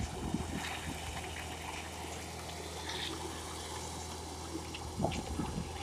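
Wet concrete sliding down a long chute from a self-loading concrete mixer, over the mixer's steady engine hum, with a louder thump about five seconds in.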